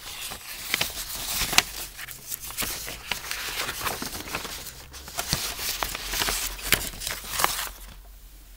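Rustling and small clicks and knocks of things being handled close to the microphone, dying away near the end.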